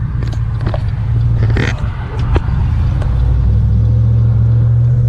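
Chevrolet Silverado 1500's 4.8-litre V8 running, choppy at first and then holding a steady pitch from about three and a half seconds in.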